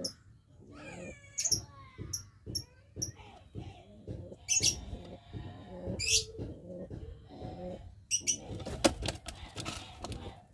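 Domestic pigeons cooing in repeated low calls, with short sharp high-pitched sounds scattered through and a burst of sharp noises a little before the end.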